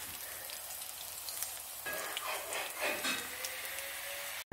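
Breaded chicken nuggets sizzling in shallow oil in a frying pan: a steady hiss with a few small pops. It cuts off suddenly near the end.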